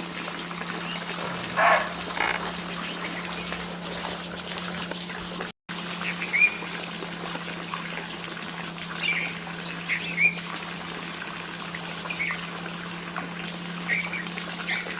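Plum-headed parakeets calling: short, shrill calls that flick upward, one every second or two, over a steady low hum.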